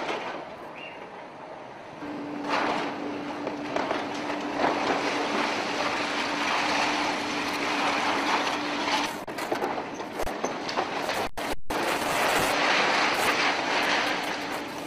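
Demolition of a building by hydraulic excavators: a dense, loud rush of crumbling and falling concrete and debris, with a steady hum under it for several seconds. The sound drops out briefly about eleven seconds in, then the crumbling noise resumes.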